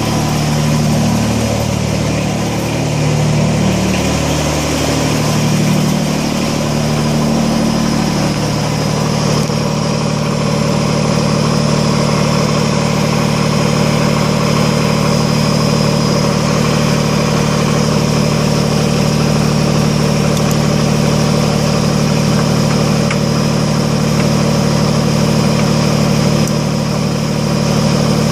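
Kubota BX25D compact tractor's three-cylinder diesel engine running, its note shifting over the first eight or nine seconds and then settling into a steady run.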